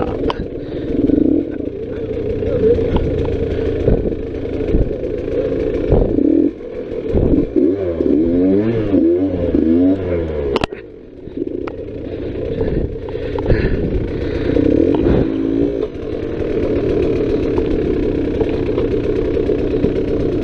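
Dirt bike engine running on a trail under changing throttle, revving up and down repeatedly about halfway through, with scattered knocks and clatter from the bike over rough ground.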